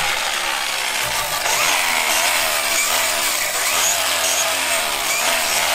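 Cordless angle grinder with a wire cup brush running against a rusty steel truck frame, stripping rust to bare metal. A steady, harsh scrubbing with a motor whine that rises and falls as the brush is pressed on and eased off.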